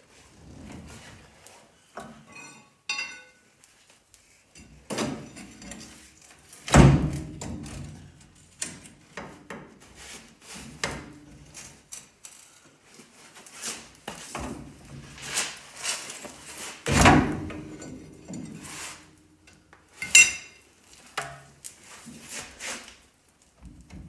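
Irregular metal clanks and knocks from hand work on a Chevy C10's front suspension and brake hub, during removal of the front coil spring. Two heavy thuds stand out, about seven seconds in and again around seventeen seconds, with short ringing metal clinks near three and twenty seconds.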